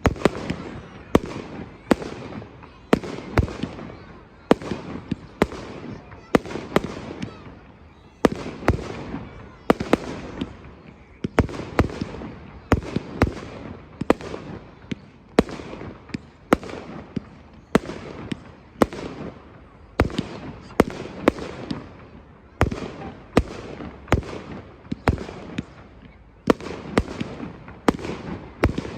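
Aerial fireworks bursting in steady succession, about one to two sharp bangs a second, each followed by a rumbling echo and crackle as the shells break overhead.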